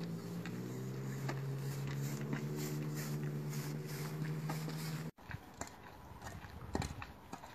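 A steady low hum runs under footsteps on a gravel path, then cuts off suddenly about five seconds in. After that, quieter scattered steps and knocks on the gravel are heard.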